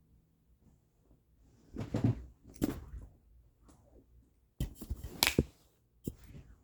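Rustling and handling noises with a few sharp clicks and knocks, in two bursts about two and five seconds in, as someone fumbles about for a phone.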